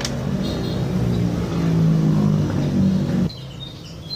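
A vehicle engine running, growing louder with a slight rise in pitch, then cut off abruptly about three seconds in. Birds chirp in the background.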